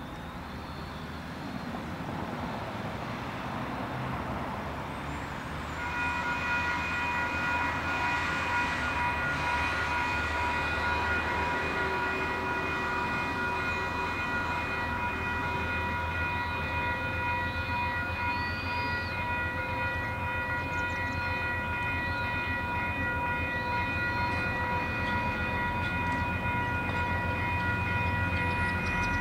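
Level crossing alarm bells start ringing suddenly about six seconds in and keep ringing steadily, over the low, growing rumble of diesel locomotives hauling a freight train toward the crossing.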